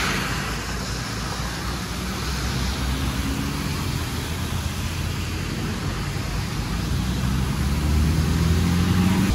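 Bus engine running, with a steady hiss of rain and wet road throughout. Near the end the engine note rises and grows louder.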